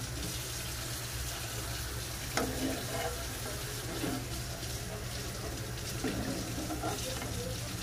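Steady hissing kitchen background over a low hum, with faint voices now and then.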